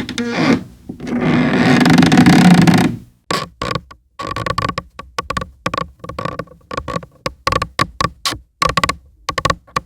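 Wooden stair treads creaking under footsteps. A long, loud, drawn-out creak fills the first three seconds, then comes a quick run of short creaks and squeaks that keep returning to the same high squeak.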